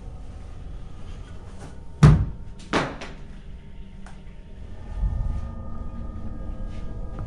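Two sharp knocks about three-quarters of a second apart, the first the louder, then a duller low thump a few seconds later over a low steady background noise.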